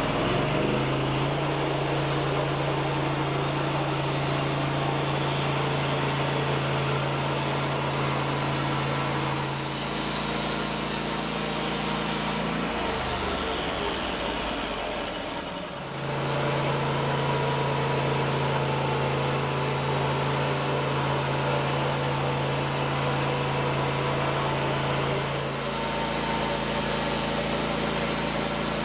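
A small engine running steadily. Its note changes about a third of the way in, falters and drops in level around the middle, then picks back up and shifts once more near the end.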